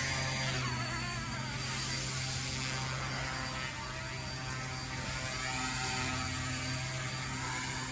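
Small electric RC helicopter flying: a steady hum from its motor and rotor, with a whine whose colour shifts as the helicopter moves about.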